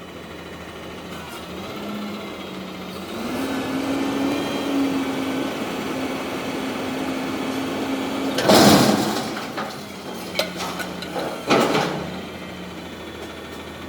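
Garbage truck engine running steadily, its pitch stepping up about three seconds in and holding, then a loud metal crash of a dumpster being slammed about two-thirds of the way through, followed by two smaller bangs.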